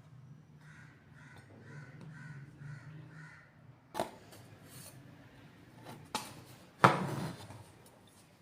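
A bird calls six times in quick, even succession, harsh calls. Then come three sharp knocks, the loudest near the end.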